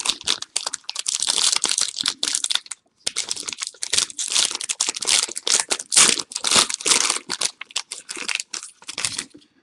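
A trading card pack's wrapper being torn open and crinkled by hand, in dense irregular crackles with a brief pause about three seconds in.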